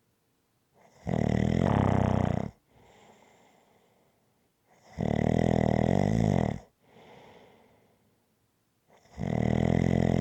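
Rhythmic snoring: three loud snores about four seconds apart, each lasting about a second and a half, with a much softer breath out after each.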